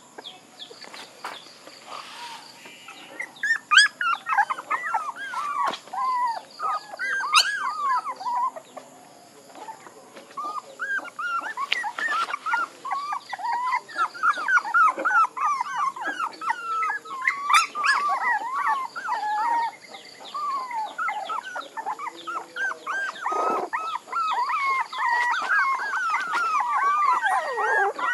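Young puppies whining and yelping: many short, high cries one after another, sparse near the start and for a moment about a third of the way in, then coming thick and fast.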